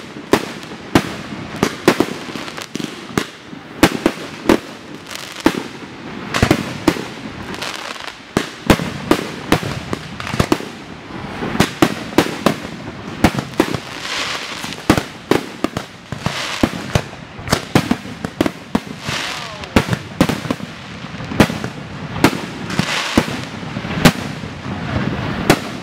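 Aerial firework shells bursting in rapid succession, several sharp bangs a second, without a break.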